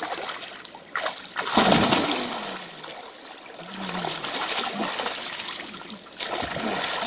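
River water splashing and sloshing as a person scoops and slaps it with her hands, then wades in and splashes with her arms. The loudest splash comes about one and a half seconds in, with more splashing near the middle and end.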